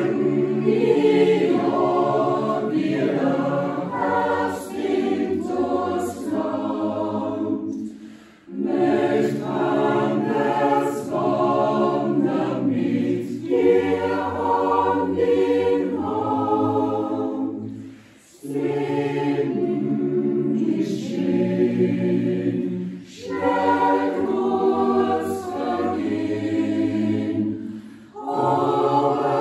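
Small mixed choir of men and women singing a cappella in parts, the phrases broken by short pauses for breath about four times.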